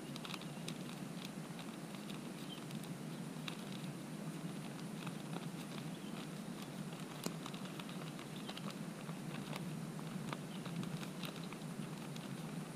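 Tapioca flour shaken from its plastic bag into a plastic basin: soft patter and crinkling of the bag, with faint scattered ticks over a steady low background noise.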